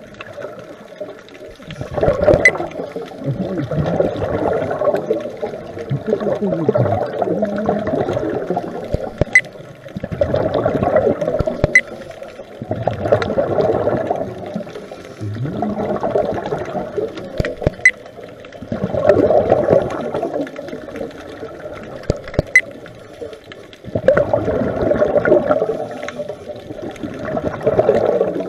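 Scuba breathing heard underwater: exhaled air bubbling out of a diver's regulator in gurgling bursts every few seconds, between breaths.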